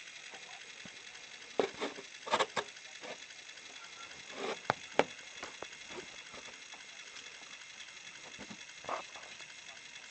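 Sony CDP-M19 CD player's transport running: the disc spinning over the laser pickup with a steady high whine, broken by a handful of irregular clicks and knocks.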